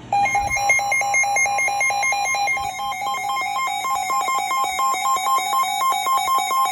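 Weather radio's electronic alert alarm sounding for an incoming severe thunderstorm warning: rapid beeping, several beeps a second, starting abruptly. One pitch beeps alone at first; from about two and a half seconds in, a higher beep alternates with it.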